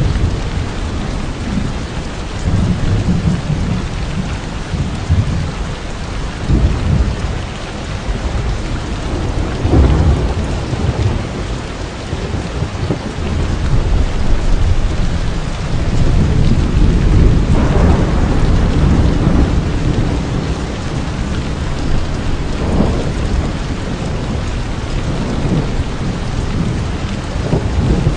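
Heavy rain pouring steadily onto the ground and leaves. Low rolls of thunder swell up about ten seconds in and again around seventeen to twenty seconds.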